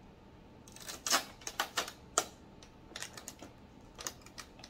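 Blue shipping tape being peeled off the plastic housing of an Epson XP-15000 printer. A few short rasps and clicks come about a second in, followed by scattered taps and clicks of hands on the plastic.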